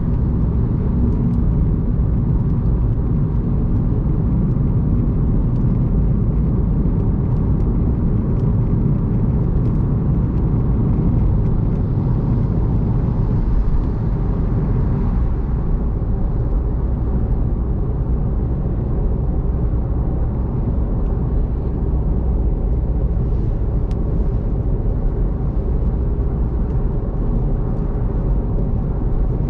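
Car travelling at expressway speed on a rain-soaked road: steady low tyre and road rumble with a faint hiss of wet tyres, unchanging throughout.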